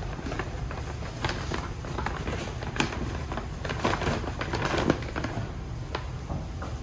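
Irregular light clicks and taps, thickest a little past the middle, over a steady low rumble.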